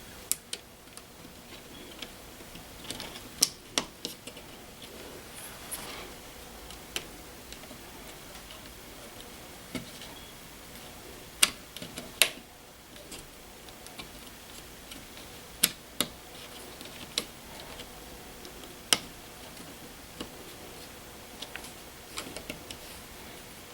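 Scattered small clicks and taps of hands working wires into a Nest thermostat's base, irregularly spaced with a few louder snaps.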